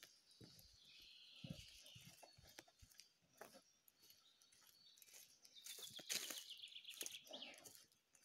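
Faint birds singing in the trees, including a quick trill that falls in pitch in the second half, over soft footsteps and rustling on a dirt path.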